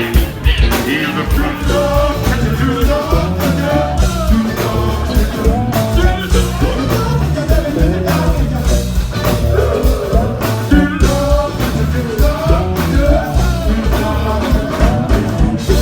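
Live funk band playing loud amplified music, with singing over a steady bass line and drum beat.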